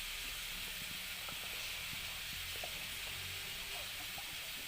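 Faint, steady sizzling hiss from the biryani cooking on the stove, with a few soft ticks.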